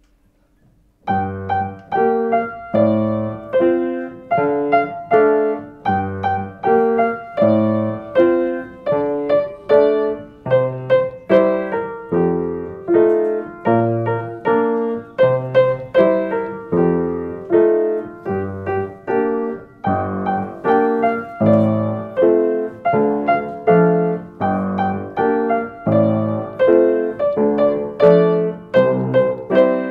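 Piano played four-hands by a young pupil and her teacher: a simple, steady tune over repeated bass notes, starting about a second in.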